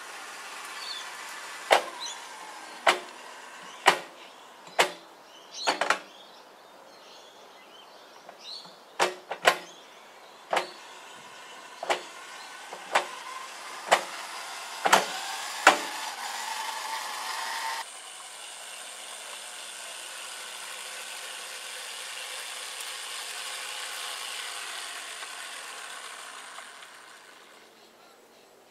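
1:24 scale model electric tram running on outdoor garden track: sharp clicks from the wheels on the rails, roughly one a second, over a steady running noise. After that comes a steadier electric motor hum and wheel rumble, which fades out near the end.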